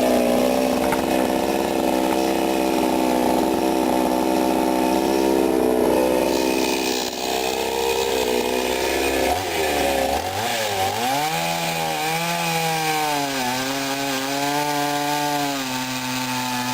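Sadko GCS 510E two-stroke petrol chainsaw running at full throttle. About nine seconds in, its engine note drops and wavers up and down several times, the way a saw does when it comes under load cutting wood, then steadies.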